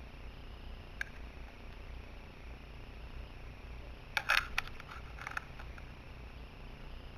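Handheld camera handling noise over a low steady hum: a single click about a second in, then a cluster of clicks and knocks a little after four seconds as a phone is picked up and held to the camera.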